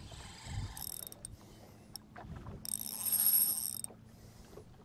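Spinning reel whirring in two spells, a short one about a second in and a longer, louder one around three seconds in.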